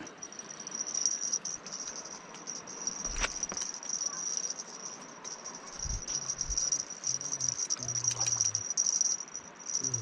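Insects chirring in a steady high-pitched drone, with a few soft low thumps partway through.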